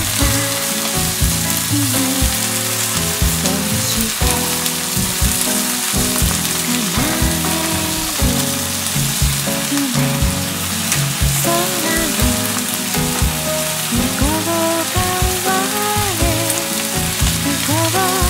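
Chopped onion and canned crab meat sizzling steadily in butter in a frying pan as they are stir-fried, with background music over it.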